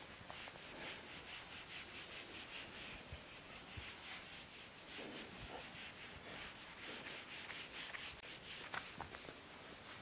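Whiteboard duster wiping a whiteboard in quick back-and-forth rubbing strokes, louder for a couple of seconds past the middle.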